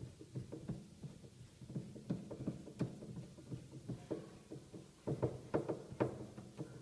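Irregular light knocks and clicks of hard plastic from hands working at a top-loading washing machine's drum, tub ring and pulsator, thickest near the end, over a faint low hum.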